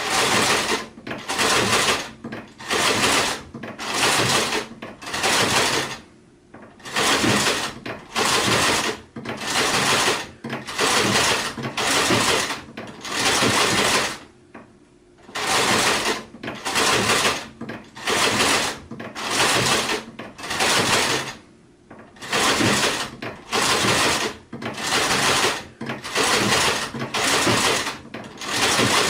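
Sewing machine running in short stitching bursts of about half a second each, roughly one a second, in runs of seven or eight with a pause of about a second between runs.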